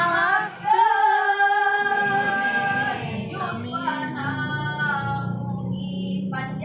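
Singing: a solo voice holds long, gently wavering notes of a melody over a steady low accompaniment, with a short break about half a second in.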